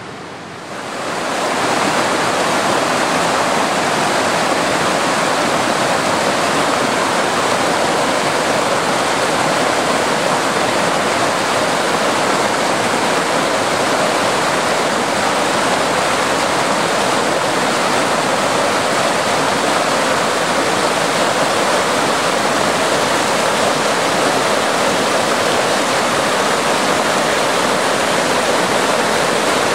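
Forest stream rushing steadily, running high with storm runoff after heavy rain. The rush swells up about a second in, then holds unchanged.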